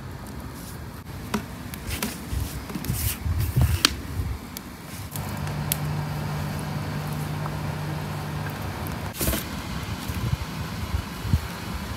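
A motor vehicle's engine running nearby, a steady low hum for a few seconds in the middle, with scattered light clicks and knocks of fish being handled on metal trays.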